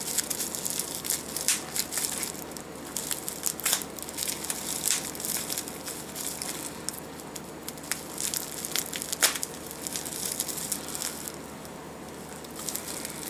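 Clear plastic wrapping crinkling and crackling as it is cut with a knife and pulled apart by hand, with many crackles, the sharpest a little past two-thirds in.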